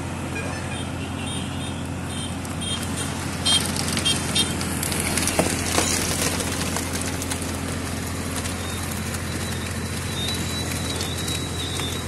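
Tractor engine running steadily, powering a hydraulic log splitter as its ram drives a gnarled stump onto the steel splitting wedge. A series of sharp cracks and knocks between about three and a half and six seconds in as the wood gives way.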